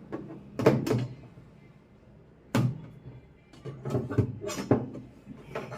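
Hard knocks and clatter of a tool working inside a washing machine's spin-dryer tub, trying to free a jammed handkerchief: a couple of separate knocks, then a quicker run of them in the second half.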